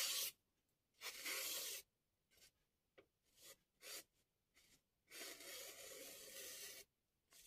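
Freshly sharpened Tanaka deba knife slicing thin strips off a sheet of printed paper: soft hissing cuts, a brief one at the start, one about a second in, and a longer one of nearly two seconds about five seconds in, with a few faint ticks between. The clean, easy cuts are the sign of a razor-sharp edge.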